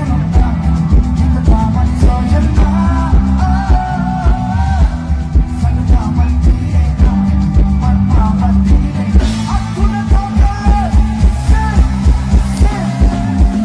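Live band music through a loud PA, a singer over drums with a heavy steady beat and strong bass.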